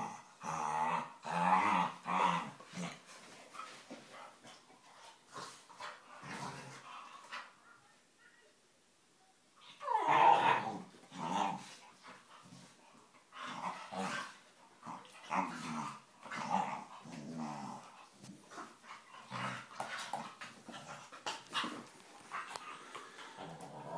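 Staffordshire bull terriers growling and grumbling as they play-fight, in many short bouts. A brief lull comes about eight seconds in, then a loud call that falls in pitch about ten seconds in, before the growling picks up again.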